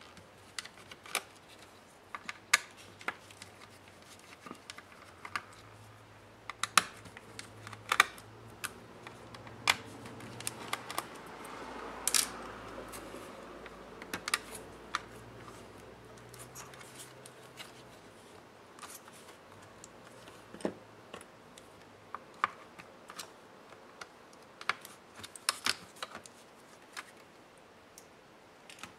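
Scattered clicks, taps and light scrapes of hands and a small precision screwdriver working on an opened laptop's battery: screws being undone and the battery pack lifted out of its bay, with a busier patch of scraping midway.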